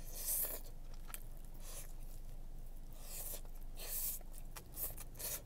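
Plastic fork scraping in a styrofoam takeout box as the box is handled: several short, scratchy scrapes and rustles.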